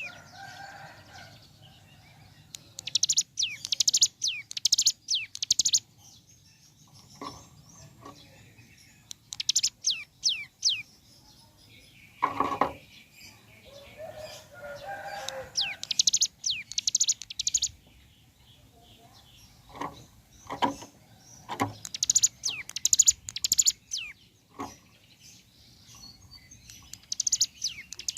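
Ciblek gunung prinia singing in repeated rapid bursts of high, fast-falling notes, the rattling 'ngebren' trill, each burst lasting a second or two. A few short knocks fall between the bursts.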